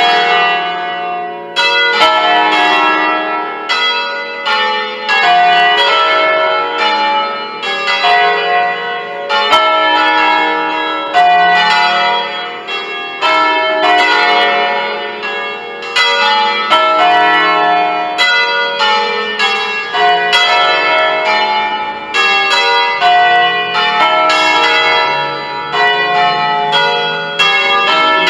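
A peal of the five church bells cast by Pruneri in 1887, tuned with the largest on a slightly flat E3, rung by hand in the Ambrosian style. The bells swing on their wheels and strike again and again in a continuous, overlapping peal.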